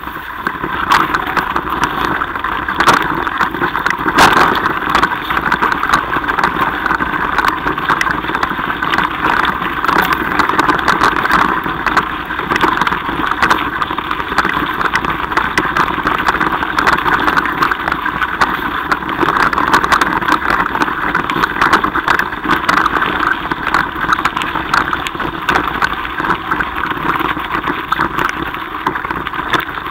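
Mountain bike riding over a loose gravel track, heard from a bike-mounted camera: a steady rushing noise from tyres and air, with many small clicks and knocks from the bumps.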